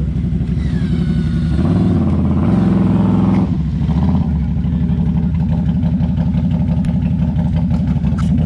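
ATV engine running under load on a trail, the revs rising and falling several times as the throttle is worked.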